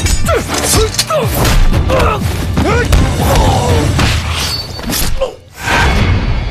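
Film fight sound effects: a rapid run of hits and thuds with short shouts and grunts, over background music.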